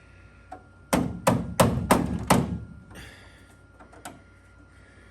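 Five quick hammer blows on sheet metal, about three a second, each with a short ring: a patch panel being tapped into place with a body hammer.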